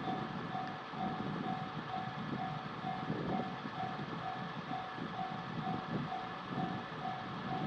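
Japanese railroad crossing warning bell ringing its repeated single-pitched clang, a little under two strokes a second, over the low rumble of a passing train.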